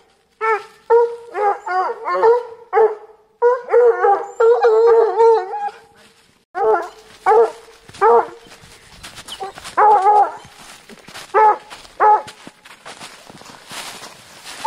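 Hunting hounds giving tongue while tracking a wild boar's scent on the lead: a quick run of high, yelping cries, then single cries about a second apart from roughly six seconds in. Brush and snow rustle near the end.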